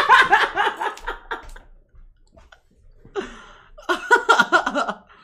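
People laughing loudly in rapid, choppy bursts: a long burst at the start, then two more bursts about three and four seconds in.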